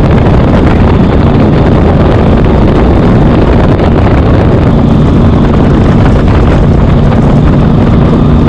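Loud, steady wind rushing over the microphone on a moving motorcycle, a 2007 Triumph Speedmaster, with its parallel-twin engine running evenly underneath.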